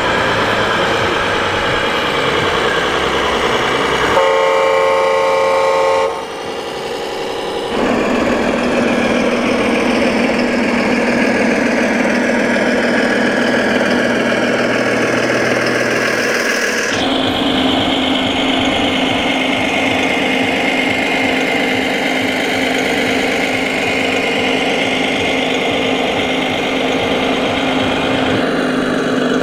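Engine sounds from scale RC trucks' electronic sound modules, a steady diesel-like drone, with a horn sounding for about two seconds some four seconds in. The engine note steps to a slightly higher pitch at about 17 seconds.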